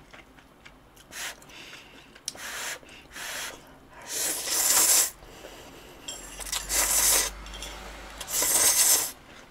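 A person slurping thick instant ramen noodles in a run of noisy slurps. A few short ones come first, then three long, loud ones about four, seven and eight and a half seconds in.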